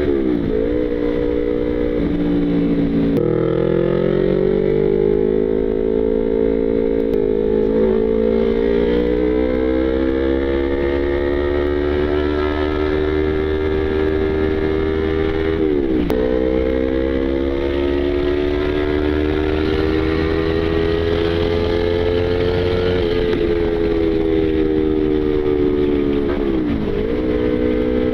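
Yamaha YZF-R25 parallel-twin engine running hard at high revs, its pitch climbing slowly, broken by a few quick sharp dips and steps as the rider changes gear.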